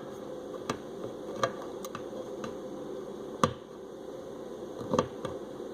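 Scattered sharp metal clicks and scrapes of a Wenger pocket-knife can opener working at a tin can lid, about seven in all, the sharpest about three and a half seconds in. The blade is catching and slipping without getting purchase on the lid.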